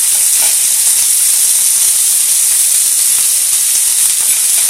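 Chunks of raw beef and chicken sizzling in hot fat in a frying pan, freshly added: a loud, steady hiss.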